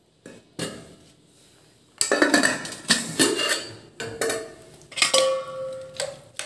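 Stainless steel plates, lids and cooking pots clinking and clattering as food is served out, with a sharp knock near the start. A steel plate or lid rings on briefly about five seconds in.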